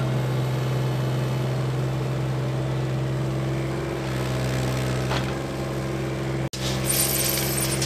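Case CX17C mini-excavator's diesel engine running steadily while the machine digs and swings its boom. Near the end the sound cuts out for an instant, followed by a short rattling burst.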